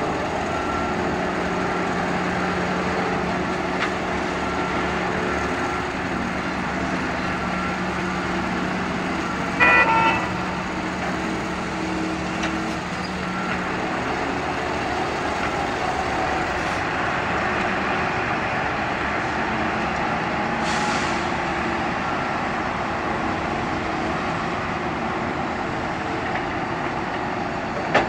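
Diesel engines of a Volvo wheeled excavator and a tipper truck running steadily on heavy earthmoving work. A short horn toot sounds about a third of the way in, and a brief hiss comes about two-thirds of the way in.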